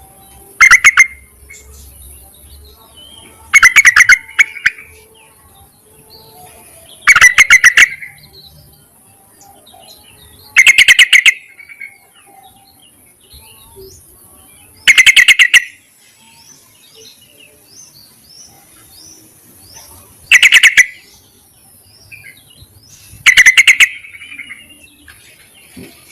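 Female yellow-vented bulbul calling to a male: a short burst of rapid, bubbly notes, repeated seven times every three to five seconds. Faint chirps of other birds and a steady high hiss sound between the bursts.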